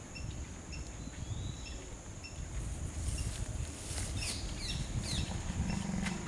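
Outdoor wildlife chorus: birds calling with short chirps repeating about twice a second and a few quick falling notes, over a steady high insect drone, with a low rumble underneath.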